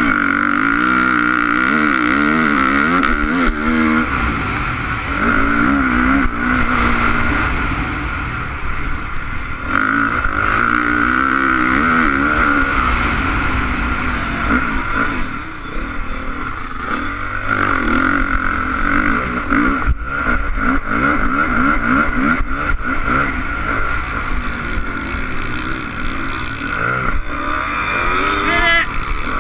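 Honda CRF450 four-stroke single-cylinder motocross engine being ridden hard, its revs rising and falling again and again through throttle changes and gear shifts, heard from a helmet-mounted camera.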